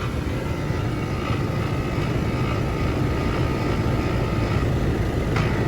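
A 4-ton Trane XR13 air-conditioning condensing unit running steadily just after start-up, its compressor and condenser fan making a constant mechanical drone with a faint high tone. The compressor really sounds bad, in a unit that is low on refrigerant.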